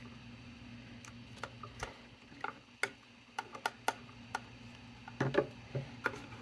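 Irregular light clicks and taps of hand tools, wire and small electrical hardware being handled, with a louder clatter a little past five seconds in.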